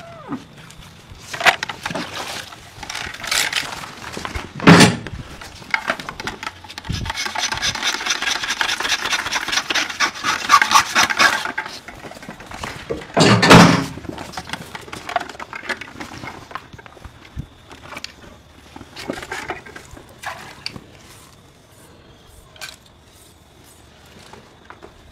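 Knife and hands working the hide off a cow carcass: irregular scraping and rubbing, with a run of quick, even scraping strokes in the middle and two louder bumps.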